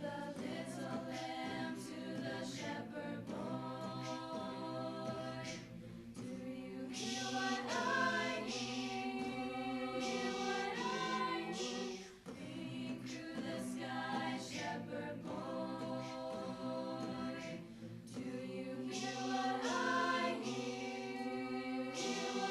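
High school choir singing, with short breaks between phrases about six and twelve seconds in.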